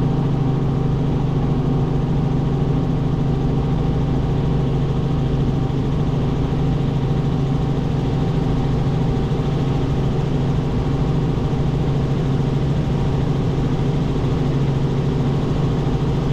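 Robinson R44 helicopter in steady cruise, heard from inside the cockpit: its six-cylinder Lycoming piston engine and rotors make an even drone with a strong low hum that does not change.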